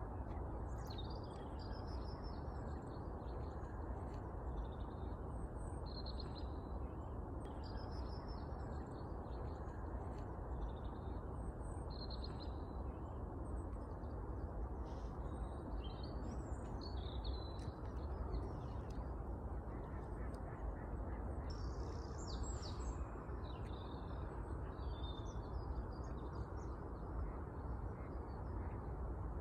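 Small songbirds chirping and calling on and off, many short high calls, over a steady low background rumble.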